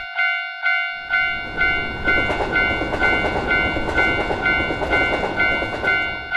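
Japanese level-crossing warning bell ringing its "kan-kan" chime about twice a second, while a train rumbles past from about a second in and fades out near the end.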